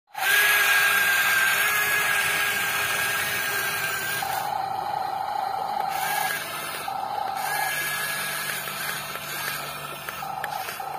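Small electric gear motors of a Yigong RC toy excavator whining. A steady whine for the first four seconds gives way to a series of shorter whines at different pitches, with a low hum under them in the second half, as the arm and then the track motors run.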